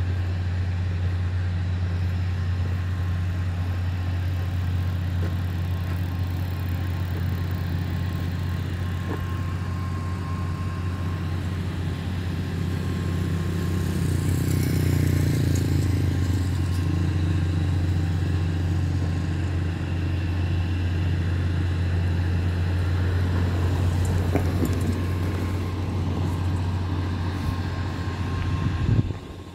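Diesel engine of an XCMG GR165 motor grader idling steadily at close range. It swells louder for a few seconds about halfway through.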